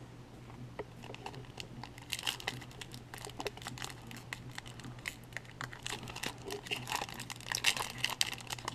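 Crinkling and crackling of a Topps baseball card pack's foil wrapper being worked open by hand. It starts about a second in and gets louder and busier. The wrapper is stubborn and does not tear open easily.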